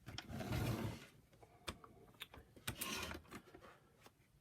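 Clicks and knocks of the carpet cleaner's parts being handled. A short clatter comes in the first second, then several separate sharp clicks.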